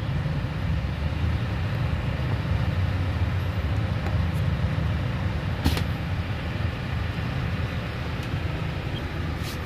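Steady low hum of a Toyota HiAce Premio van running, heard inside its cabin, with one sharp click about six seconds in.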